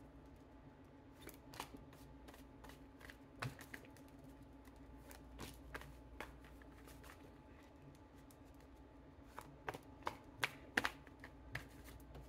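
A tarot deck being shuffled by hand: faint, scattered soft clicks and flicks of the cards, with a quicker run of sharper clicks about ten seconds in.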